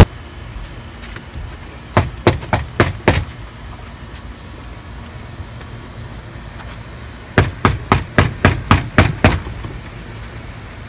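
Knuckles rapping on a front door: a quick run of about five knocks about two seconds in, then a longer run of about ten knocks about seven seconds in.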